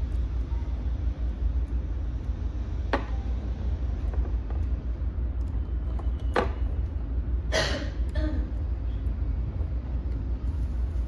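A steady low hum, with a few short clicks and a brief rustle as insulated wires with ring terminals are handled.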